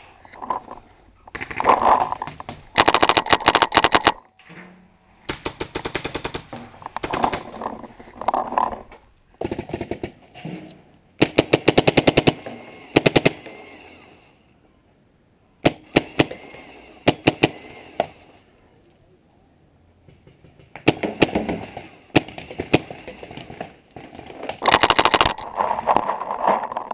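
Paintball markers firing rapid strings of shots in repeated volleys, each a second or two long, with short lulls between.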